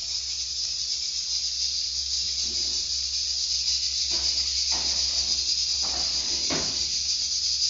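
Cubes of pork fat (torresmo) sizzling in oil in an aluminium pot on a gas stove, a steady high hiss. A few faint knocks come in from about four seconds in.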